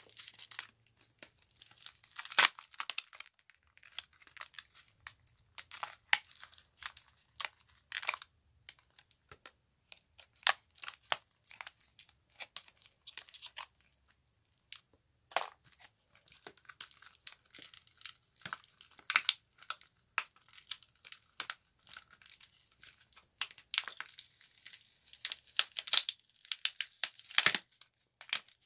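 Adhesive tape and the glued pouch battery crackling and tearing as the battery is pried off a tablet's frame with a screwdriver, with scattered sharp clicks and snaps at uneven intervals.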